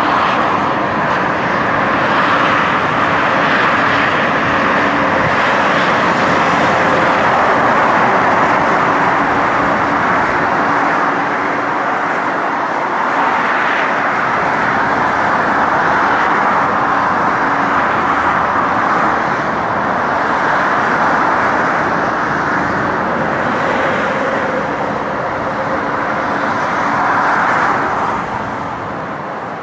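Steady tyre and engine noise of traffic on a multi-lane expressway below, swelling now and then as vehicles pass and easing off near the end.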